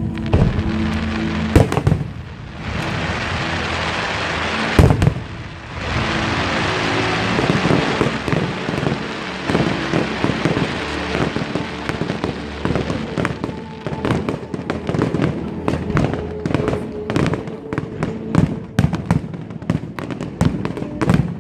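Aerial fireworks display: bursting shells go off amid a dense, continuous crackle, and in the second half a rapid run of sharp bangs follows. Music plays faintly underneath.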